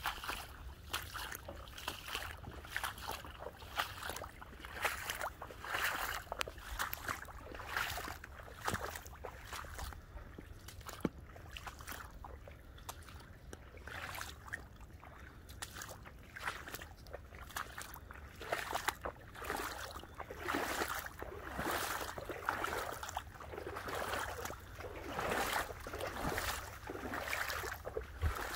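Footsteps of a walker and dogs through wet leaf litter and shallow water. The steps come at a steady two to three a second, with splashing and sloshing that grows fuller in the second half.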